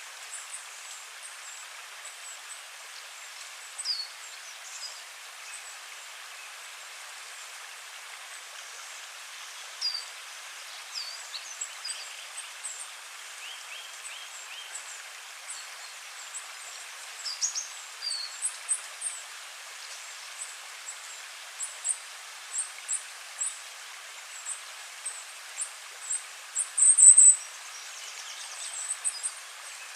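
Forest ambience: a steady rush of running water with small birds chirping and calling over it, the calls growing busier in the second half and loudest in a quick chattering burst near the end.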